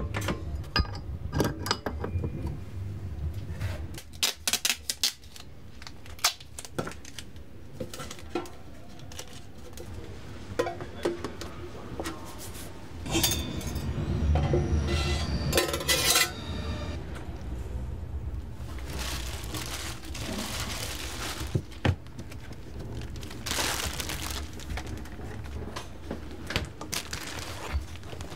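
Kitchen clatter of utensils and containers: scattered clinks and knocks, with a few longer rustling or scraping stretches in the middle and near the end.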